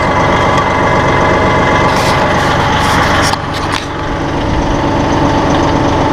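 Diesel engine of a Massey Ferguson 1742 compact tractor running steadily at idle. A hissing noise comes in about two seconds in and stops about three and a half seconds in, where the running sound dips slightly.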